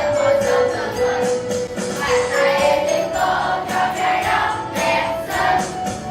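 A song with a steady beat and jingling, tambourine-like percussion, carried by a group of children singing together.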